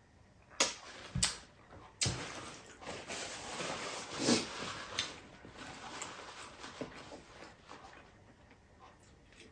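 A few sharp knocks on the tabletop in the first two seconds as a stemmed glass is set down, then a paper napkin rustling and crinkling for about three seconds as it is unfolded and handled.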